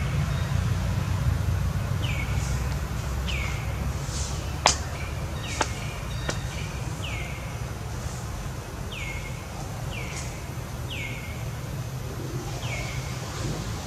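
A bird calling over and over, short chirps that fall in pitch, about one a second, over a steady low rumble. A few sharp clicks come about five seconds in.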